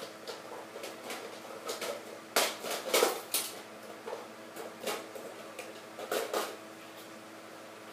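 Small plastic toys being handled and set down on a hard surface: irregular clicks and knocks, with a cluster of louder clacks between about two and a half and three and a half seconds in.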